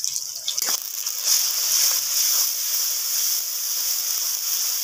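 Chopped onions and ginger-garlic paste sizzling in hot oil in an iron wok, with a metal spatula stirring and scraping the pan. A single sharp knock comes just under a second in, and the sizzle grows louder once the stirring gets going.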